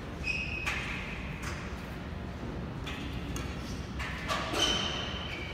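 Court shoes squeaking on a wooden badminton court floor: a short squeak just after the start and a louder one near the end, among a few light knocks from footsteps.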